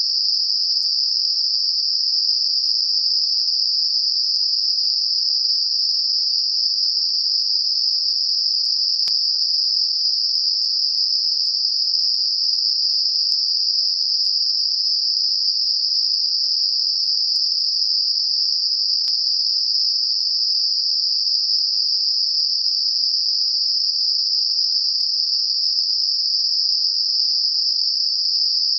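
Synthetic Gaussian narrow-band noise centred on 5 kHz, a tinnitus masker: a steady, even high-pitched hiss with no variation.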